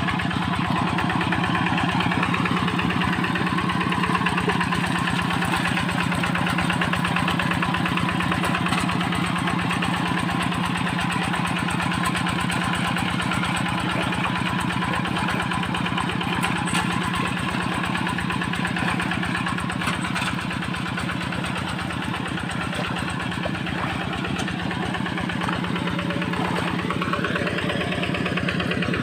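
Rice-field tractor engine running steadily, with an even, rapid firing beat.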